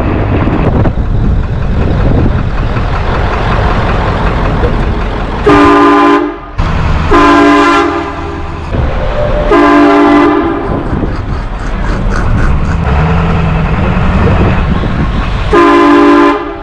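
HornBlaster train horn kit fitted to a vehicle, blasting four times, each a loud steady chord about a second long, over the steady low rumble of the vehicle.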